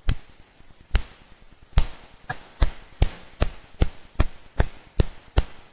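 A series of about a dozen sharp knocks, spaced out at first, then settling into an even beat of about two and a half a second.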